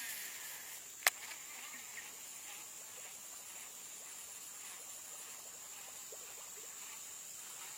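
Insects droning steadily in a high, even pitch, with one sharp click about a second in.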